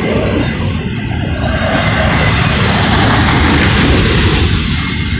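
Freight train's multilevel autorack cars rolling past: a loud, steady rumble of steel wheels on rail, with a hissing rush that swells a couple of seconds in and eases near the end.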